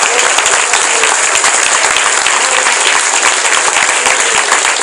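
A congregation clapping and applauding: dense, steady clapping from many hands.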